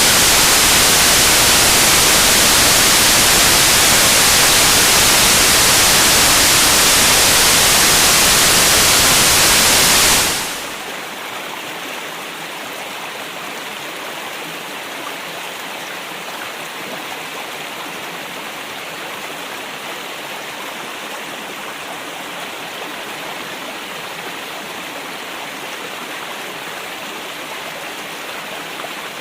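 Steady rush of flowing river water, loud and full for about the first ten seconds, then dropping suddenly to a quieter, thinner rush that continues evenly.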